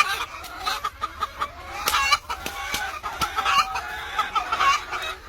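Birds calling: many short calls in quick succession, several overlapping, with scattered clicks.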